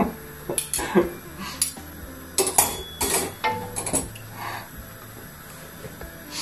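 Stainless-steel ladle and skimmer clinking against a steel pot and the gas hob's grates as they are set down: a quick run of sharp metallic clinks over the first four seconds, then a few faint ones and a last clink near the end.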